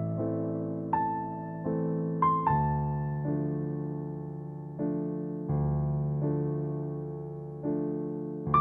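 Slow, gentle piano music: soft chords and single notes, each struck and left to fade before the next.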